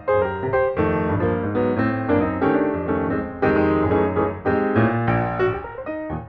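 Background piano music: a solo piano playing a flowing run of notes over held bass chords.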